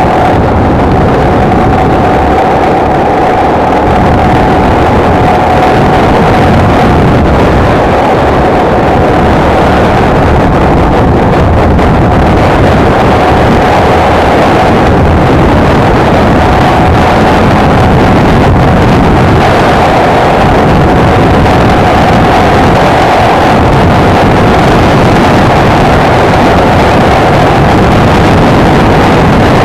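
Honda XLR125R single-cylinder four-stroke motorcycle engine running at a steady cruising speed, holding an even pitch throughout, with wind rushing over the microphone.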